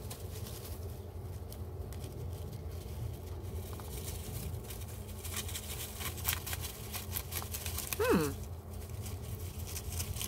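Faint, scattered rustling and small clicks of dry grass and leaves as a young squirrel moves about in its nesting material, over a steady low hum. About eight seconds in there is a brief falling vocal sound.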